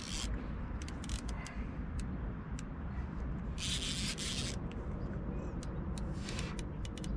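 A fishing reel being handled during repair: scattered small clicks and a few short scraping rasps, about 4 s and 6 s in, over a steady low rumble.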